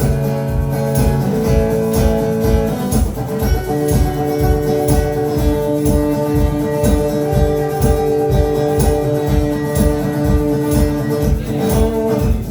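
Live band playing an instrumental passage between sung lines: guitar chords held over a steady beat.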